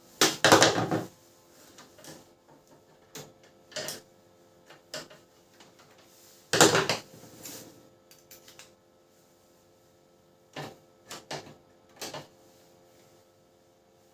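Plastic parts of a Canon LBP6030 laser printer's casing being handled and fitted back together: two longer scraping clatters, the louder near the start and another a little past midway, with scattered short clicks and knocks.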